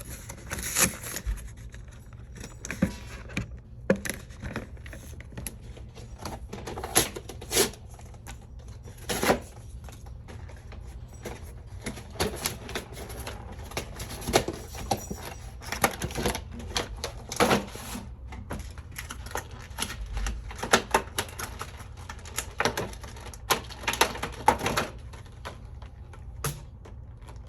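A cardboard collection box being opened and handled by hand: irregular taps, clicks, scrapes and crinkles of cardboard and plastic packaging.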